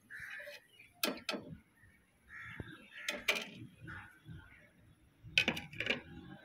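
Metal spoon clinking and scraping against a steel wok while fried bitter gourd pieces are lifted out onto a plate: sharp clinks in three short clusters, about a second in, about three seconds in, and near the end.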